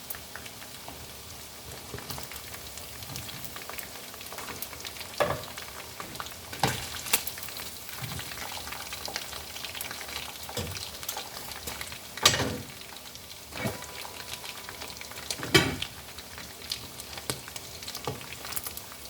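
Chicken pieces frying in hot oil in a pot, a steady sizzle, with a few sharp knocks, the loudest about 12 and 15 seconds in.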